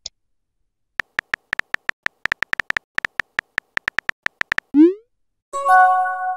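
Simulated phone-keyboard typing clicks in a quick run of about two dozen keystrokes, then a short rising pop as the message is sent, followed near the end by a chime of several held tones.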